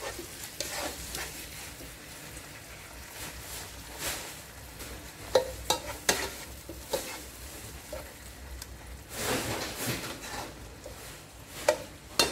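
Corned beef with garlic and onion sizzling in a nonstick pot while a spatula stirs and scrapes through it, with scattered knocks of the spatula against the pot. There is a longer, louder scrape about nine seconds in and a quick run of knocks near the end.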